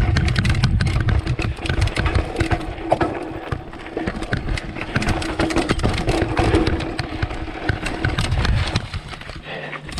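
Mountain bike riding fast down a rough dirt trail: tyres rolling over rocks and roots, the bike rattling with many quick knocks, and wind rumbling on the microphone. The rumble drops away near the end.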